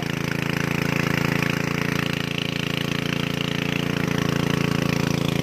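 Small engine running steadily at a constant speed, a continuous even drone.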